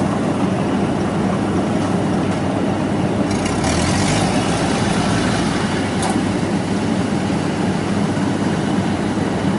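Steady running of a Yanmar 82 rice combine harvester's engine and threshing machinery, together with a small tracked grain carrier crawling through the wet paddy beside it.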